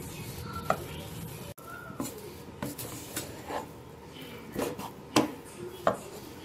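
Slotted wooden spatula stirring and tossing idiyappam biryani in a pot: irregular scraping and tapping strokes of wood against the pot and rice, about one a second or a little faster.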